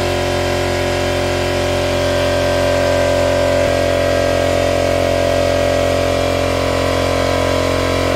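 Coolant exchange machine running steadily while it pumps coolant through the hoses: a constant mechanical hum made of several steady tones. The sound changes slightly a little under four seconds in, as its valves are worked.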